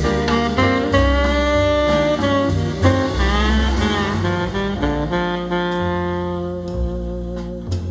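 Jazz saxophone solo with low bass notes beneath, a recording played back through Harbeth Monitor 40.3 XD hi-fi loudspeakers and picked up in the room.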